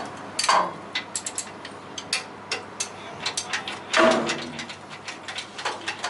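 Irregular metal clicks and clinks of a socket wrench and hand tools working on engine nuts, with one louder metallic knock about four seconds in.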